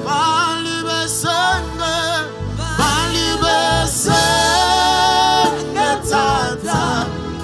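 A man singing a gospel song with vibrato over instrumental backing with sustained bass notes.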